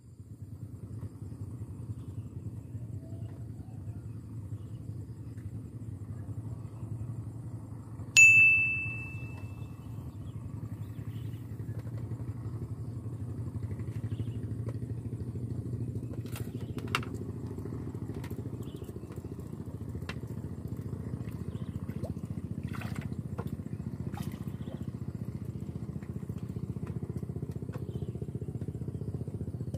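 Steady low motor rumble, with one sharp bell-like ding about eight seconds in and a few light clicks later on.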